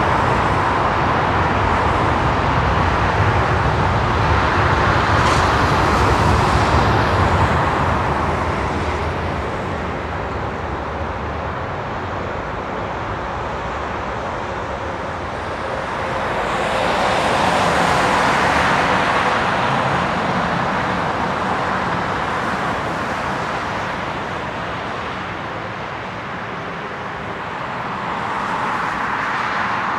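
Airbus A340-300's four CFM56 jet engines at takeoff thrust during the takeoff roll and lift-off: a steady roar that is loudest in the first seconds, fades, and swells again a little past halfway and near the end.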